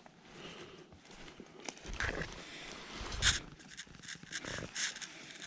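Rustling and crunching in dry pine-needle forest litter from footsteps and a hand pushing through the needles, a handful of separate crunches with the loudest about three seconds in.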